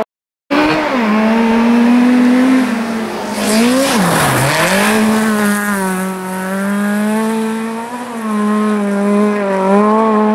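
Volkswagen Golf Mk2 rally car's engine held at high revs as the car slides on a snowy gravel stage, cutting in after a brief silence. About four seconds in the pitch drops sharply and climbs straight back, with a hiss of tyres and spray around the dip, then stays high with small wobbles.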